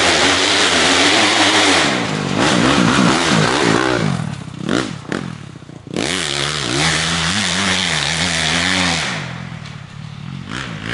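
Dirt bike engine revving up and down as the bike rides the trail toward and past. About four seconds in the sound drops and swoops in pitch, then the engine picks up again about six seconds in and eases off near the end.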